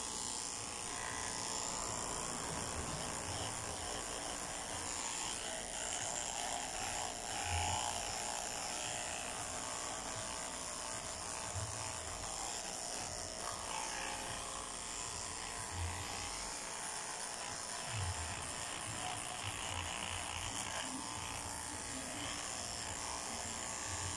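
Corded electric dog clippers running steadily while shaving a Maltese terrier's long coat.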